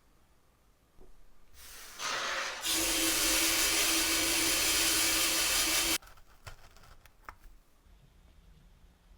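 A loud steady hiss with a faint low tone in it builds up over about a second, runs for about three seconds, then cuts off suddenly. A few light clicks follow.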